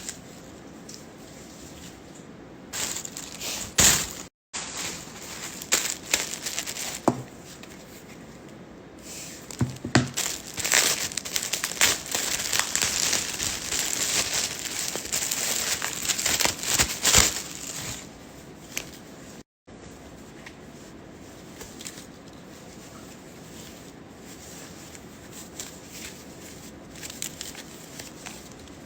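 Packaging being handled and unwrapped, crinkling and rustling in bursts; loudest and nearly continuous from about ten to eighteen seconds in, then quieter.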